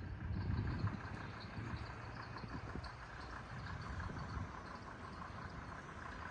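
Steady low background rumble with a faint hum higher up, with no distinct events.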